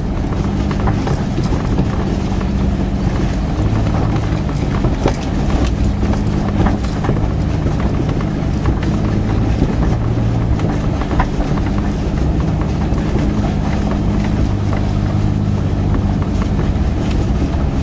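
1989 Jeep Cherokee's engine running at low revs, heard from inside the cab, its pitch shifting slightly a few times as it crawls along a rocky creek bed. Irregular clunks and rattles from the body and suspension come through over it.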